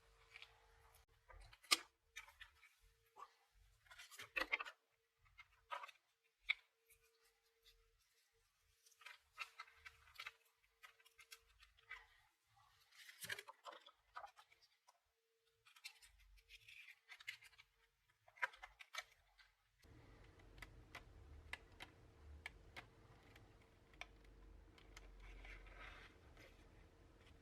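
Plastic pry cards scraping and clicking along the edge of a Samsung Galaxy Tab A7's display as they cut through the screen adhesive: scattered short scratches and taps with near silence between them.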